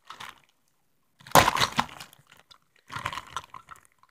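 Clear plastic toy bag crinkling and crackling as it is pulled and worked open by hand, in three bursts, the loudest about a second and a half in.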